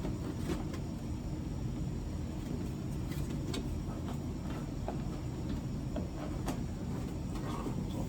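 A few sharp clicks and light knocks of plastic dryer control-panel parts being handled during disassembly, over a steady low rumble.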